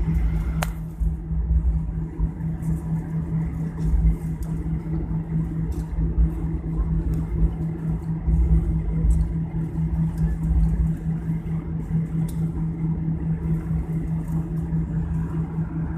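Airliner cabin noise after landing: a steady low hum with an uneven rumble beneath it, and a few sharp clicks, the first about half a second in.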